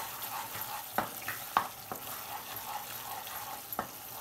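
Tomato masala sizzling as it fries in a pan, stirred with a wooden spatula that knocks and scrapes sharply against the pan several times in the middle and once near the end.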